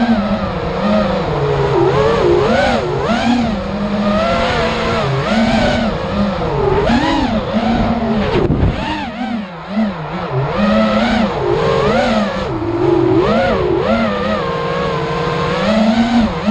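Racing quadcopter's electric motors and propellers whining, the pitch swooping up and down quickly with the throttle, with a short drop in level about nine seconds in.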